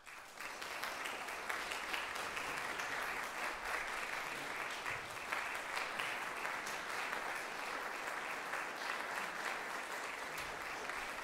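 Audience applause that starts all at once and continues steadily.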